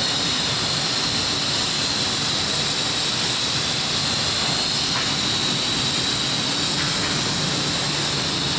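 Steady, loud roar of a blast furnace cast house during casting, with a high steady whine held on top.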